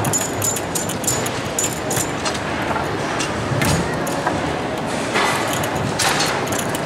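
Tecball foosball table in play: rapid clicks and clacks of the plastic players striking the ball and of the metal rods rattling as they are shifted and spun, a few sharper knocks about five and six seconds in, over a steady din of the hall.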